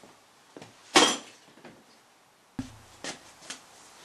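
A single sharp metallic clank about a second in that rings briefly, like a metal part being set down hard. It is followed by a duller thump and a few light clicks of handling.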